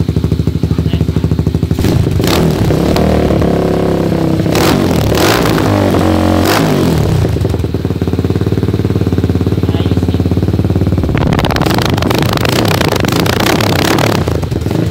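Motorstar Z200 Explorer motorcycle's 200cc single-cylinder four-stroke engine running through an open Akrapovic-style carbon exhaust with its silencer insert removed. It idles with a loud, pulsing beat and is blipped several times between about 2 and 7 seconds in, then revved and held up from about 11 to 14 seconds in before dropping back to idle.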